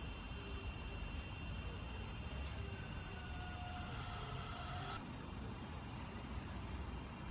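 Steady, high-pitched chorus of insects with no break, dipping slightly in level about five seconds in.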